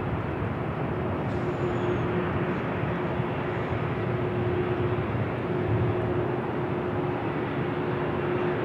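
Boeing 777-300ER's GE90-115B jet engines at takeoff thrust: a steady jet noise with a steady droning tone running through it.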